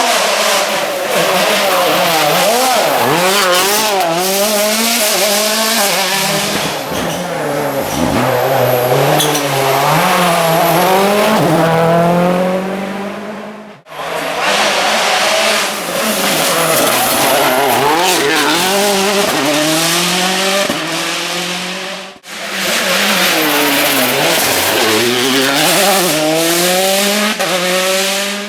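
Rally car engines worked hard through a stage, the pitch climbing and dropping again and again with gear changes and lifts off the throttle. Three separate runs, each cut off abruptly.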